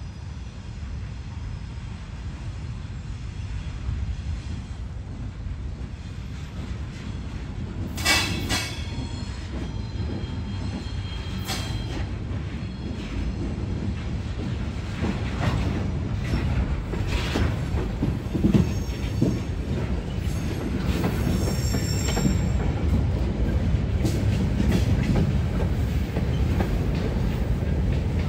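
Freight train led by diesel locomotives rumbling nearer, growing steadily louder, with a sharp squeal about eight seconds in and more wheel squeal and clatter on the rails as it closes in.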